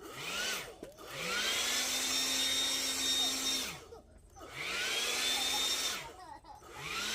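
Leaf blower switched on and off in bursts: a short blip, then runs of a few seconds each, its motor whine rising as it spins up, holding steady, and falling away when let off.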